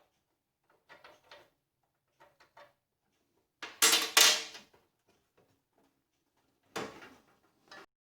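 A few short knocks and rattles of hard parts being handled on a steel welding cart, loudest as two quick clatters about four seconds in, with a shorter one near seven seconds.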